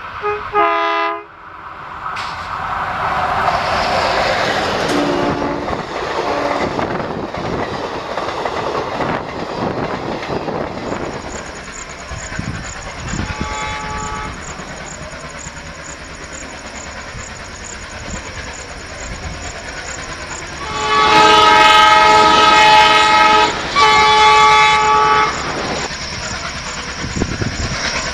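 Indian Railways diesel locomotive hauling passenger coaches, sounding its multi-tone air horn: a short blast about halfway through, then a long loud blast and a second shorter one near the end, over the steady rumble of the running train. A brief horn is heard right at the start before it cuts off abruptly.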